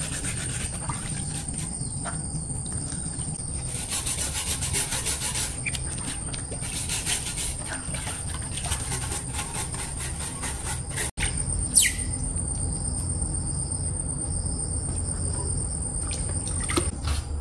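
Hands scrubbing a bicycle tyre and rim in a plastic basin of water, with rubbing and water sloshing in uneven spells. A steady high insect drone runs underneath, and near the middle one short falling chirp is heard.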